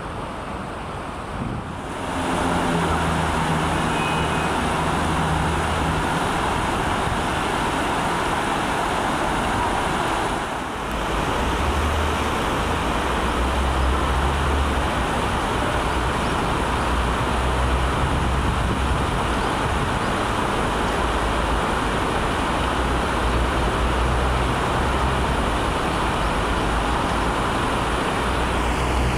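Steady road traffic noise, a continuous hiss of passing vehicles over a low engine rumble that shifts in level.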